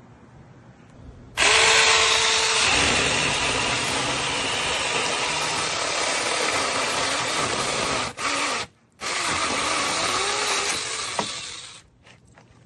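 Cordless mini electric chainsaw running, starting about a second and a half in, its pitch wavering, with a short break about nine seconds in before it runs again and stops near the end.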